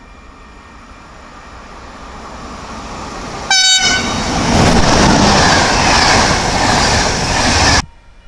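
Train approaching, its noise building steadily, then one short, sharp horn blast about three and a half seconds in, a driver's greeting, followed by the loud rush of the train passing, which cuts off suddenly near the end.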